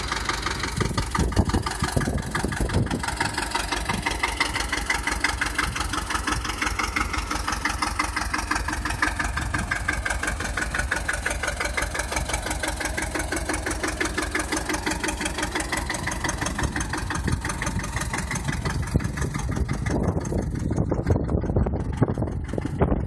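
Deutz 40 tractor's diesel engine idling steadily with an even, rapid run of firing beats.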